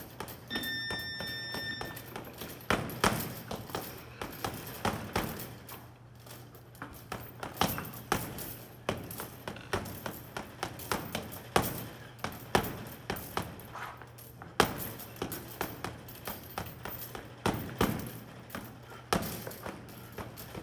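Gloved punches landing on a Title Boxing heavy bag in irregular bursts of thuds and slaps. A short steady electronic beep sounds about a second in, over a faint steady low hum.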